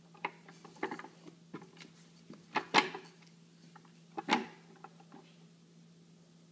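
A baby's palms patting and slapping on a hardwood floor as she crawls: a few scattered pats, the loudest two about three and four seconds in.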